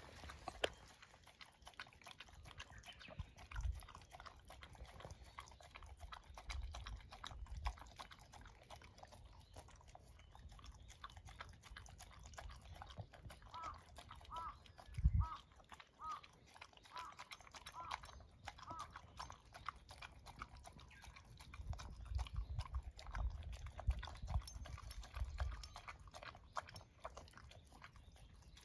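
Dog eating from a plastic bowl: a steady patter of wet licking and chewing clicks, with a few dull low thumps now and then.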